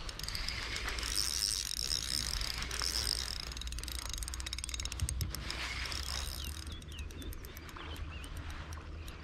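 Spinning reel being cranked to retrieve a lure, its gears giving a rapid mechanical ticking.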